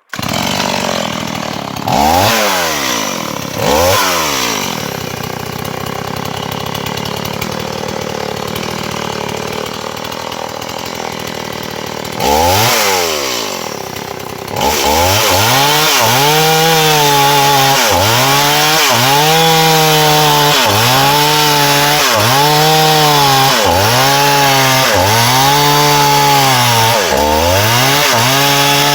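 Chainsaw idling and revved up briefly three times, then from about halfway held at full throttle cutting into a dry fallen log, its pitch dipping and recovering about once a second.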